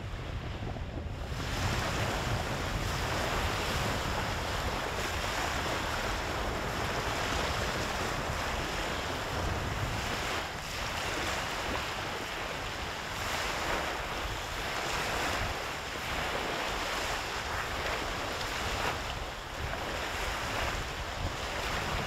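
Steady rushing noise of moving water and wind, growing louder about a second in and then swelling and easing gently.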